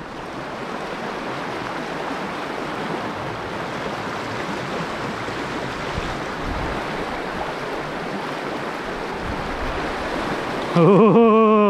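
Shallow, rocky river riffle rushing steadily. About a second before the end, a person's voice calls out briefly.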